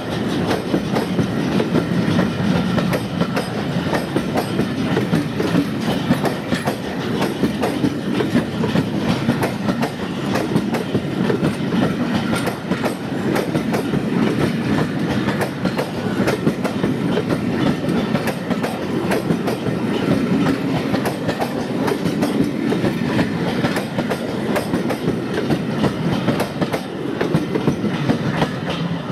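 Passenger coaches of a steam-hauled train rolling past, a steady rumble with quick, irregular clickety-clack from the wheels running over rail joints and pointwork.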